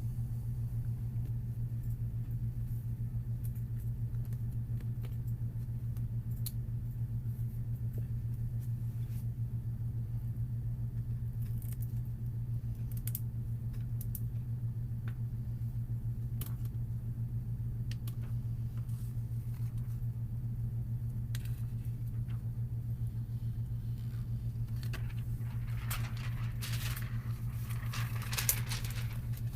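A steady low hum throughout, with scattered light clicks and a short patch of handling noise near the end.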